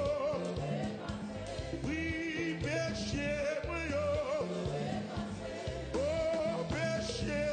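Live gospel worship music: a man singing with a wavering, held voice over a band with a stepping bass line.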